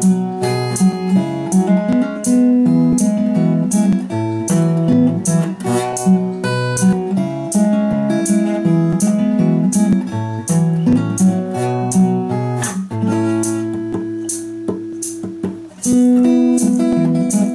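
Yamaha steel-string acoustic guitar played solo in three-finger picking style, an alternating bass under a plucked melody. It dips briefly near the end before the next phrase comes in strongly.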